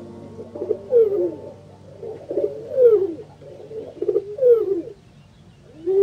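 Rock pigeons in a flock cooing: four drawn-out coos that fall in pitch, about one every one and a half seconds, with softer cooing between them.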